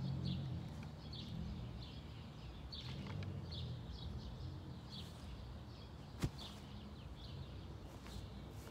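Potting soil pouring and rustling from a tub into a fabric-lined crate, with small birds chirping repeatedly in the background. A single sharp click comes about six seconds in.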